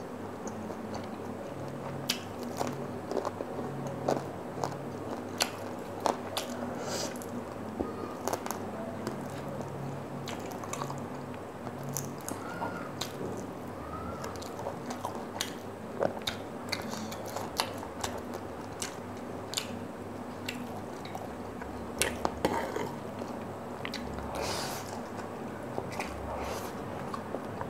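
Close-up eating sounds: chewing and biting on Korean fried chicken, with frequent sharp wet mouth clicks and smacks. Near the end, instant noodles are slurped in with a hissing suck.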